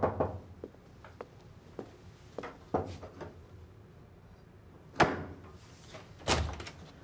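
Someone working at a door: clicks and rattles of the handle and lock, then two louder thumps against the door about five and six seconds in, the second the heavier.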